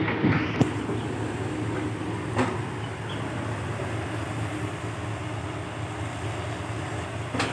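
Diesel engine of a Komatsu PC120-5 hydraulic excavator running steadily as it digs and loads, with a few sharp knocks: about half a second in, around two and a half seconds in, and near the end.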